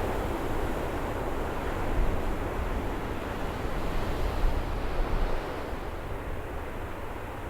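A breeze blowing across the microphone: a steady rushing with a low, gusting rumble of wind buffeting the mic, easing slightly near the end.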